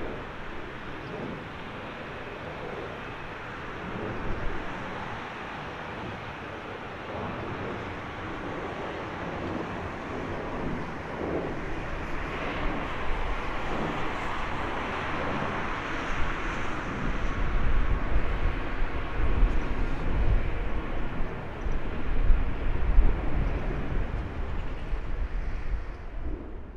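Airbus A220-300's Pratt & Whitney PW1500G geared turbofans running at taxi power as the airliner rolls past. The jet noise swells about halfway through and stays loud, with a deep rumble underneath in the second half.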